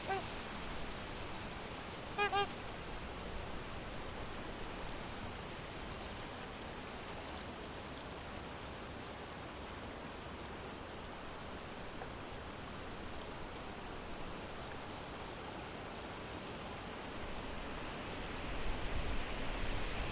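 Trumpeter swans giving short honking calls: one at the very start and a brief double honk about two seconds in, over a steady outdoor hiss. A low rumble builds near the end.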